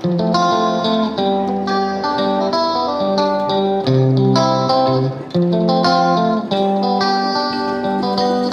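Background music: an instrumental of plucked guitar notes in a steady rhythm.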